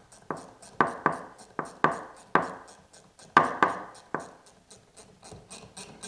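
A wrench loosening the cable adjustment nuts on a BAL Accu-Slide slide-out mechanism: a run of sharp metallic clicks and scrapes, about two a second and uneven, thinning out and getting fainter after about four seconds.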